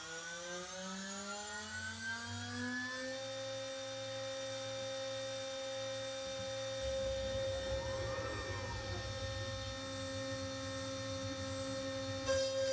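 Spindle of a 6040 CNC router spinning up, its whine rising for about three seconds and then holding at a steady pitch. From about halfway a lower rumble joins in, with a brief rising-and-falling whir in the middle and an abrupt change in the whine just before the end.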